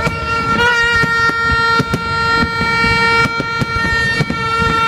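A horn held in one long, steady note for nearly five seconds, while fireworks bang and crackle.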